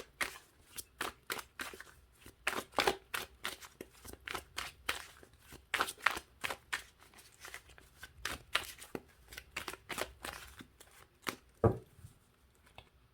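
A deck of oracle cards being shuffled by hand: a long irregular run of quick card slaps and flicks, a few each second. One louder knock near the end.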